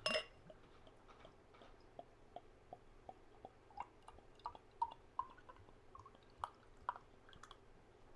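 Carbonated homebrewed lager poured from a glass flip-top bottle into a glass: a sharp clink as it starts, then faint, irregular glugs that rise in pitch as the pour goes on.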